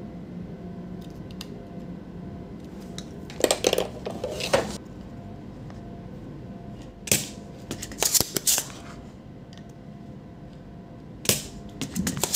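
Spring-loaded solder sucker (goot GS-100 desoldering pump) being cocked and fired several times, its plunger snapping back with sharp clacks, in three groups of bursts, while solder is pulled from a diode's leads on a circuit board.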